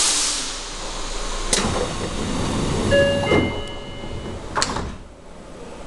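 Commuter train's sliding passenger doors closing: a short chime of two tones about three seconds in, the doors running shut around it, and a sharp click near the end as they lock.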